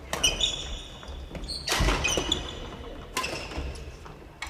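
Sports shoes squeaking and footfalls thudding on a wooden gym floor as several players move quickly about, in a large echoing hall, with a single heavy thud just before two seconds in.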